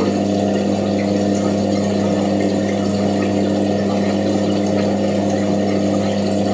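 Washing machine running with a steady motor hum, faint light ticking over it.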